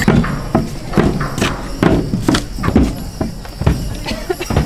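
Footsteps of a procession crossing a footbridge deck: hollow knocks about two a second.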